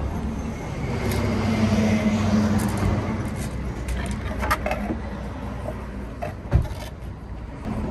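Steady low mechanical hum, swelling a little in the first few seconds, with scattered light clinks and one sharp knock about six and a half seconds in.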